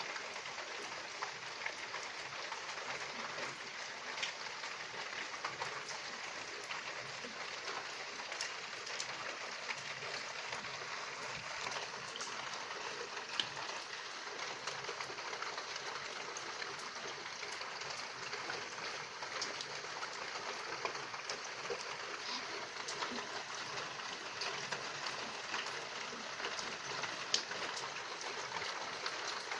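Steady rain falling, an even hiss with scattered drops ticking on surfaces.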